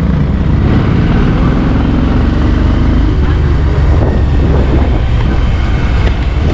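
Bajaj Pulsar 150's single-cylinder engine running as the bike pulls away and picks up speed gently, heard from the rider's seat.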